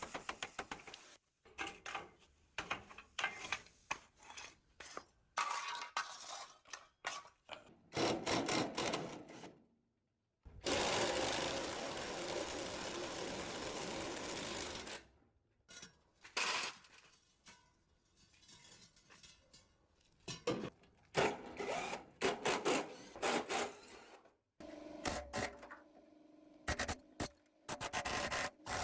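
Hand-tool work on metal in short edited clips: repeated rubbing and scraping strokes, with a steady noisy stretch of about four seconds near the middle.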